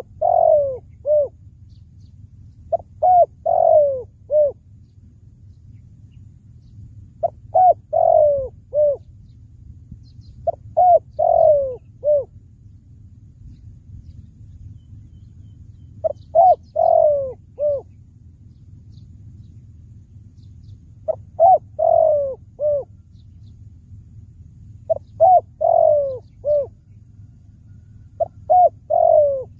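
Spotted dove cooing, a decoy bird calling to draw in wild doves: a phrase of several short coos, repeated eight times a few seconds apart.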